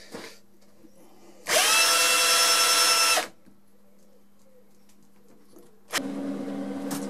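Cordless drill chucked onto the CNC X-axis leadscrew, run once for under two seconds to wind the carriage along on its new adjustable leadnut. It spins up to a steady whine and stops abruptly.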